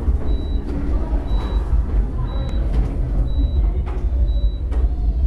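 A short, high electronic beep repeating about once a second, like a vehicle's reversing alarm, over a loud steady low rumble.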